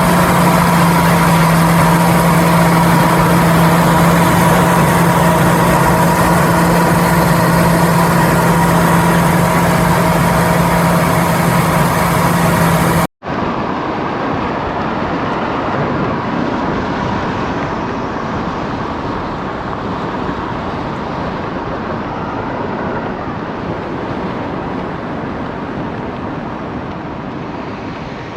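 Heavy vehicle engine running steadily with a strong low hum and a high whine. About halfway the sound cuts out for an instant, then gives way to a broader engine noise that slowly fades.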